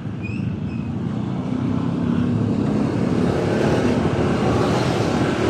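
Motorcycle engine running and wind rushing over the microphone while riding, growing louder over the first few seconds.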